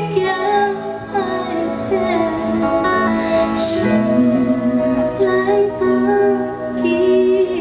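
Classic Taiwanese Hokkien song performed live: a female singer's voice with long held notes over a band's accompaniment.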